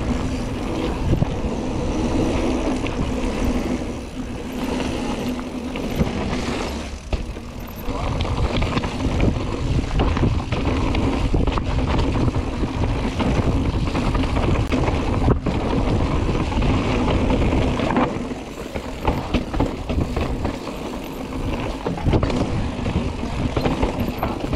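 Mountain bike descending a rough downhill trail: wind buffeting the camera microphone over the rumble of knobbly tyres on dirt and rocks, with frequent knocks and rattles from the bike.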